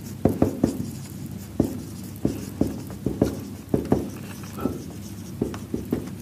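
Marker pen writing on a whiteboard: irregular short taps and scratches from the pen strokes, about two a second.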